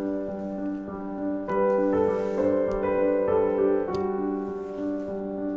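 Gentle background piano music: a held low note under a repeating pattern of higher notes, with new chords entering about a second and a half in and again near four seconds.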